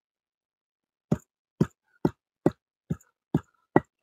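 A stone roller knocks down onto hot roasted onion, garlic, ginger and tomato on a flat stone grinding slab (pata), crushing them before they are ground to a paste. It makes seven short, dull knocks at an even pace of about two a second, starting about a second in.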